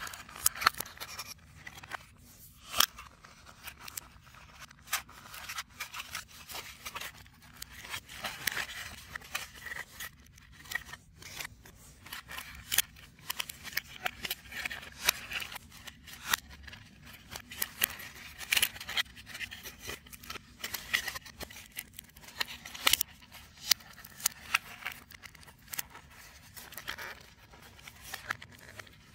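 3D puzzle pieces being handled and fitted together: irregular sharp clicks mixed with short scraping sounds.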